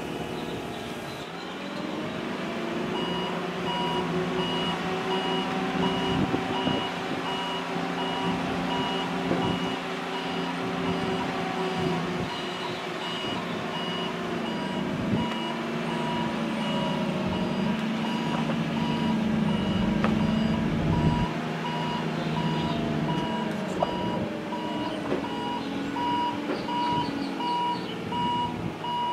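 Forklift engine running and changing pitch as it works, with a backup alarm beeping steadily over it from a few seconds in.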